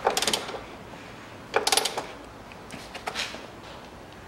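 Ratchet wrench clicking in short runs as the strut top-mount nuts are tightened: a burst at the start, another about a second and a half in, and fainter ones near the end.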